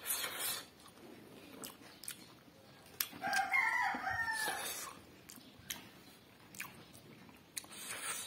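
A rooster crows once, a single call of about a second and a half in the middle. Around it come scattered clicks and short smacking sounds of someone eating.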